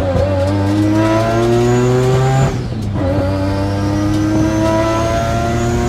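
Turbocharged three-rotor Mazda RX-7 rotary engine accelerating hard under load, its pitch climbing steadily, dropping at a gear change about two and a half seconds in, then climbing again through the next gear. A high whine rises and falls with the revs.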